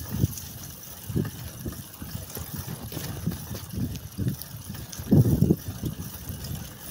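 Bicycle ridden along a bumpy dirt track: wind buffeting the microphone and the tyres rumbling over the ruts, in uneven low thumps, with a louder gust about five seconds in.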